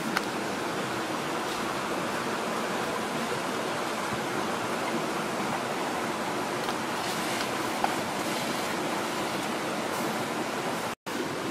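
Steady rushing noise, like nearby running water, with faint clicks about eight seconds in.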